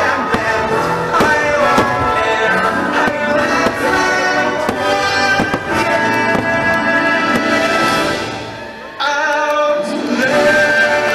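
Fireworks show soundtrack of music with singing, with the pops of fireworks bursting through it. The music falls away about eight seconds in and comes back suddenly a second later.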